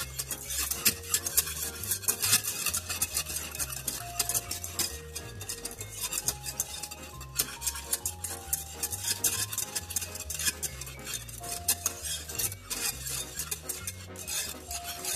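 Wire whisk beating thick barbecue sauce in a metal saucepan, its wires clicking and scraping rapidly and irregularly against the pan.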